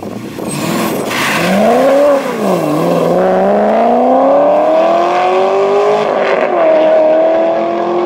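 Chevrolet Corvette Z06's 7.0-litre LS7 V8 accelerating hard through the gears, its exhaust note climbing in pitch with two upshifts, about two seconds in and about six seconds in.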